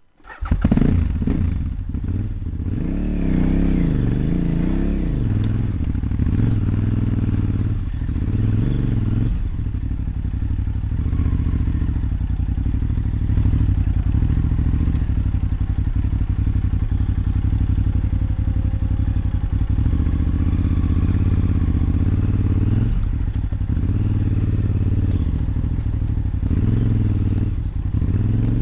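KTM 950's V-twin motorcycle engine cuts in suddenly, revs up and down over the first few seconds, then runs steadily while riding off-road, with clatter and knocks from the rough ground throughout.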